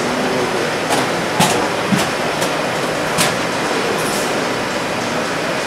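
Steady machine hum with about five sharp metal clacks over the first few seconds: chocolate mold trays being slid onto the racks of a stainless steel cabinet.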